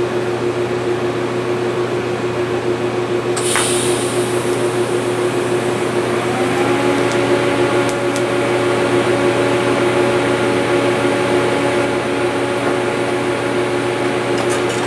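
TIG welder humming steadily during welding, with a sharp crack about three and a half seconds in and a second, higher tone joining about halfway through.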